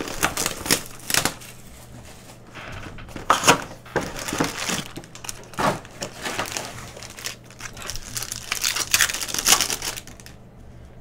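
Plastic wrapping and foil trading-card packs from a Panini Prizm hobby box crinkling and crackling as they are handled, with a pack wrapper torn open. The irregular crackles stop about ten seconds in.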